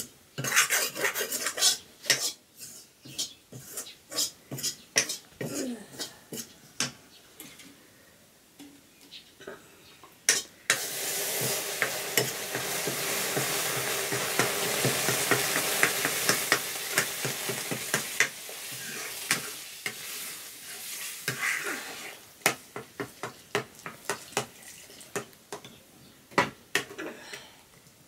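A utensil clicks and knocks against metal cookware. From about ten seconds in comes a steady sizzling hiss as liquid is poured from a kettle onto toasted flour in a hot, blackened wok. After that a spoon clicks and scrapes around the wok as the flour batter is stirred.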